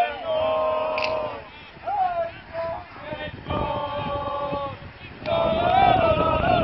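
Football supporters chanting together in the stand, with long held sung notes in short phrases and brief breaks between them.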